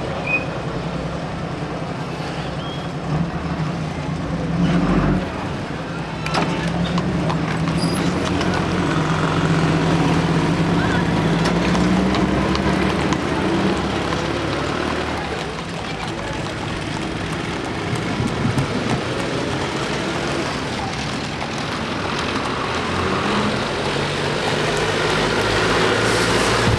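Street traffic: vehicle engines running and passing. A bus engine grows louder near the end as it comes close.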